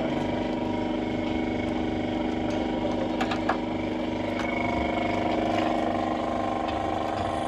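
An engine running steadily with an even hum, with a couple of light clicks about three seconds in.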